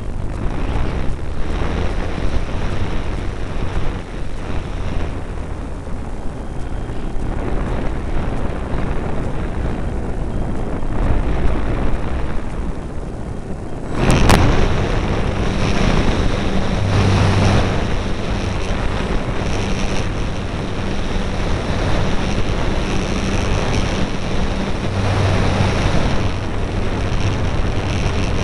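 Wind rushing over the onboard camera of an electric E-flite Apprentice RC trainer plane in flight, with the steady hum of its motor and propeller. A sudden loud thump comes about halfway through, after which the noise and hum are louder.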